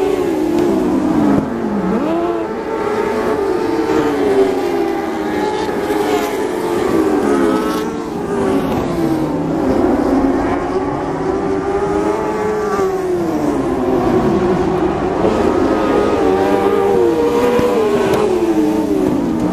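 Dwarf race cars with motorcycle engines racing on a dirt oval. Several engines run at once, their pitch rising on the straights and falling into the turns, over and over, as the pack passes.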